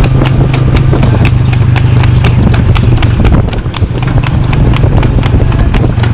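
Harness horse trotting on a paved road, hooves clip-clopping at a quick, even beat of about four or five a second, over a steady low hum.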